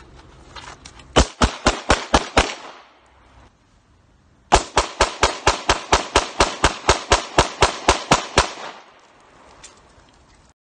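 Semi-automatic pistol fired in rapid strings: about six quick shots about a second in, then after a short pause a longer run of about eighteen shots at roughly five a second.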